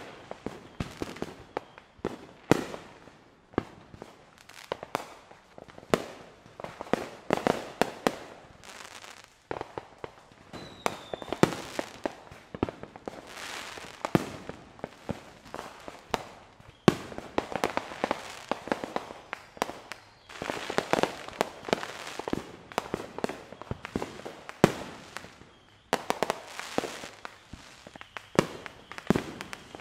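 Fireworks going off without a break: many sharp bangs and crackling bursts, overlapping at irregular intervals. There is a short lull about 25 seconds in.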